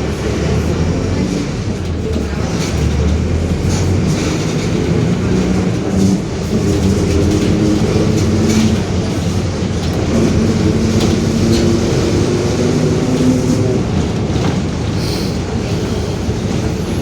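Mercedes-Benz OF-1721 city bus heard from inside while under way: the diesel engine and drivetrain run steadily, their tones rising and falling in pitch with speed, and the differential growls. Loose fittings in the body rattle and click throughout.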